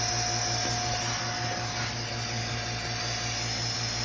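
Harbor Freight electric vacuum pump running steadily and loud, a hum with a steady high tone over it, pulling a vacuum on a chamber built from an old water pressure tank; the vacuum is just starting to be drawn.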